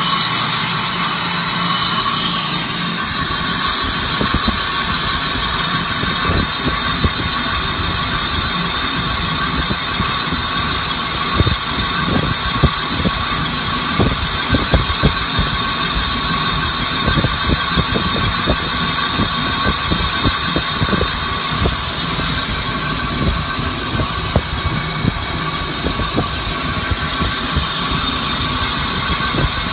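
Machine tool cutting cast iron: a steady high-pitched squeal from the cut over the machine's running. From about three seconds in it is joined by rapid, irregular low knocks and crackles.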